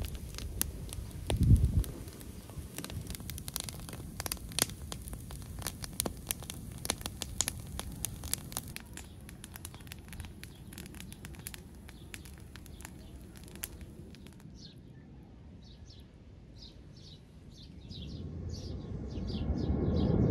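Wood fire of stacked branches crackling with many sharp pops, and a single low thump about a second and a half in. After about 14 seconds the crackle gives way to a bird calling in short repeated chirps, two or three a second, while a low rumble builds near the end.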